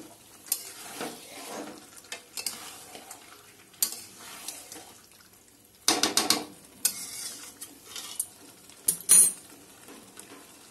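Flat metal spatula scraping and clanking against a metal kadai as chicken is stir-fried down in a thick masala, with a low sizzle underneath. A run of scrapes comes about six seconds in and the loudest sharp clank just after nine seconds.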